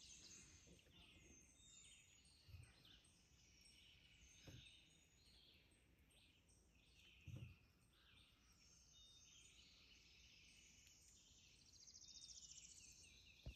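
Near silence, with faint birds chirping and trilling throughout and a few soft low thumps.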